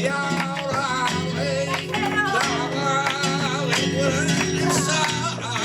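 Flamenco tangos played live: a singer's wavering, ornamented cante line over acoustic flamenco guitar, with frequent sharp percussive hits through the music.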